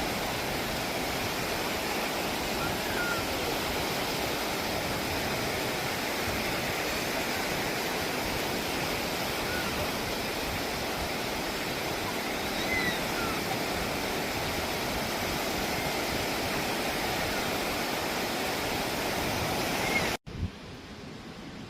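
Sea waves making a steady, even rush, with a few faint short chirps. It cuts off abruptly near the end to a quieter, different background.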